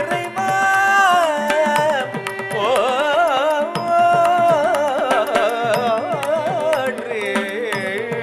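Carnatic ensemble playing a thillana: a singer and violin carry a melody full of sliding, wavering ornaments over a steady drone, with mridangam strokes keeping a quick rhythm throughout.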